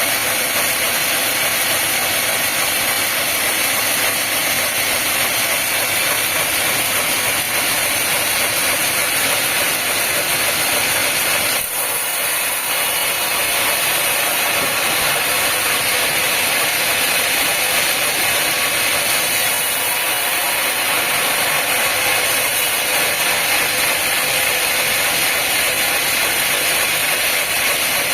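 Sawmill running, its saw cutting steadily through a log: a loud, even hissing noise, with a brief break about twelve seconds in.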